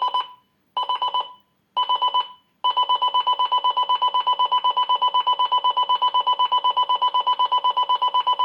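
Hyundai H-RCL246 clock radio's built-in alarm beeping: rapid high beeps in short groups about once a second, which about two and a half seconds in merge into one unbroken run of rapid beeps. This is the standard alarm escalating as it goes unanswered.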